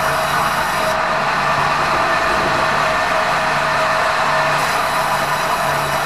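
Sawmill saw running and cutting as a squared meranti timber is fed through the blade: a loud, steady rushing whine with one held tone and a low hum that comes and goes.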